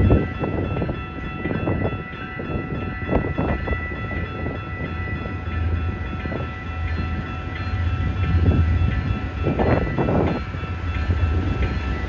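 Norfolk Southern freight train drawing closer behind two diesel locomotives, with a steady low engine rumble and rolling rail noise, heaviest about ten seconds in. A steady high tone sounds throughout.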